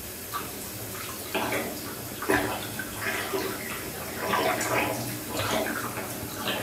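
Bath water sloshing and splashing in uneven bursts as a person shifts and lifts a leg in a full tub, with water running off it, loudest about two seconds in and again during the second half.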